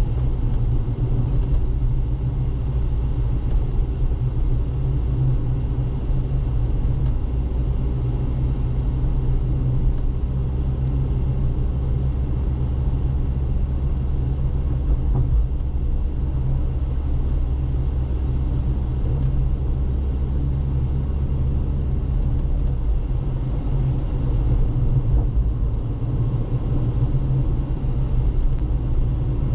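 Car driving at a steady cruise: an even, low rumble of engine and tyres on the road.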